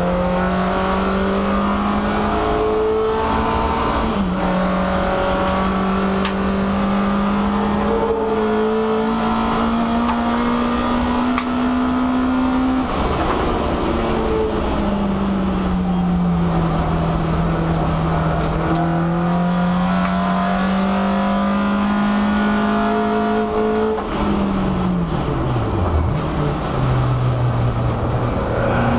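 Peugeot 306 race car's four-cylinder engine heard from inside the stripped-out cabin, pulling hard with the revs climbing slowly, a brief dip about four seconds in, a slow fall and rise through the middle, then revs dropping steeply under braking near the end before it pulls again.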